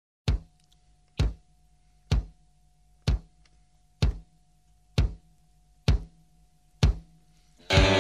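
Background music: a single drum beat struck about once a second over a faint, low held note, with the full track coming in loudly just before the end.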